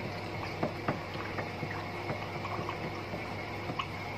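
Clear coat mixed with hardener and thinner being stirred with a stick in a plastic cup: a soft liquid swishing with light irregular ticks of the stick against the cup, over a steady low hum.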